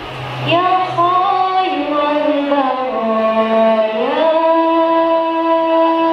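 A girl's solo voice, amplified through a microphone, singing a devotional melody without drums. The phrase steps down in pitch, then slides up about four seconds in to one long held note.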